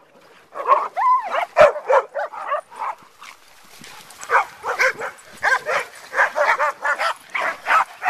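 A pack of dogs barking, short barks and yelps in quick succession, sparse at first and coming thick and fast over the second half.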